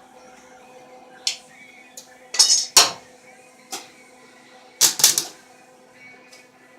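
A handful of sharp metallic clanks and clinks, as of metal parts or tools being handled and knocked together, the loudest coming in two pairs about two and a half and five seconds in, over a steady low hum.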